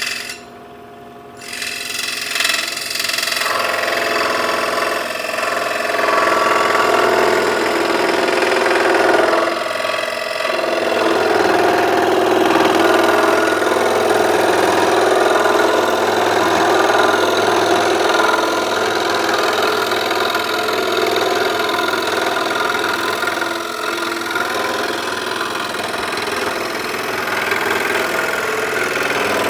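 Scroll saw switched on about a second and a half in, then running steadily while cutting a piece of wood.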